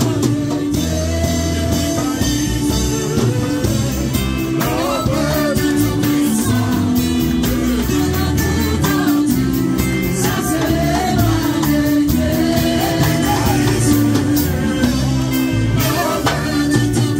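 Live gospel worship music: a man singing into a microphone over sustained keyboard chords from the band.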